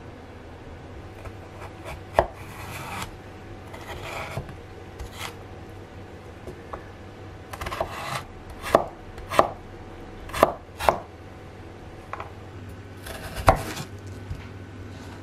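Kitchen knife cutting vegetables on a cutting board: irregular single strokes with several sharp knocks, the heaviest around the middle and near the end, and short scraping sounds in between.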